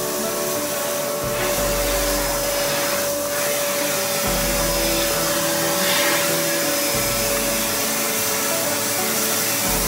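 Homstar HS-VC2300 Turbo Power vacuum cleaner running steadily, its motor giving a constant whine over a rushing of air.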